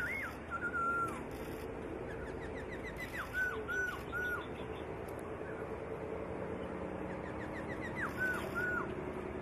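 Black-throated laughingthrush singing: three short phrases of clear whistled notes, each of three or four quick slurred whistles, a few seconds apart, with a faint steady hum underneath.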